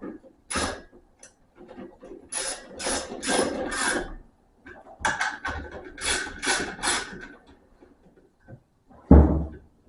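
Ratchet wrench tightening bolts on a small engine: two runs of quick clicking strokes, about three a second, with a few single clicks between, and a heavier thump near the end.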